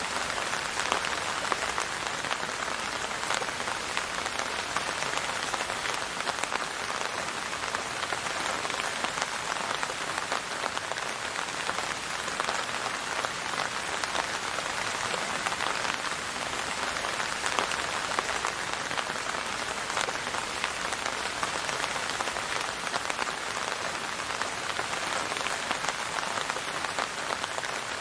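Steady rain falling on a surface, an even hiss of many small drops pattering, with no thunder.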